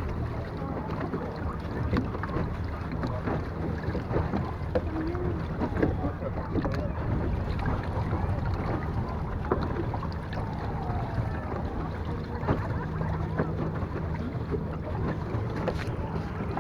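Small boat moving on the water: a steady low hum under splashing and lapping water, with scattered knocks and wind on the microphone.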